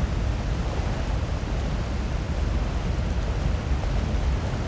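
Wind buffeting the microphone: a steady low rumble and hiss, with no distinct sounds standing out.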